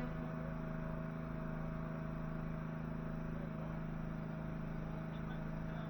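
A steady engine hum, even in level, with a regular low pulsing underneath.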